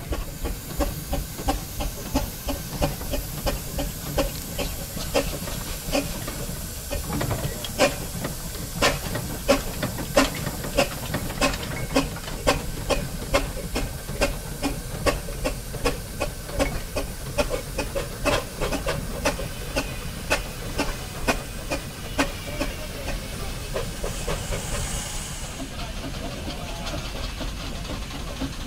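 Steam rollers running under their own steam, with steady chuffing exhaust beats about two a second over a continuous hiss of steam. A brief louder blow of steam comes near the end.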